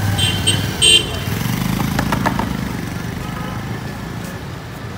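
Street traffic: a steady motor rumble with a few short horn toots in the first second.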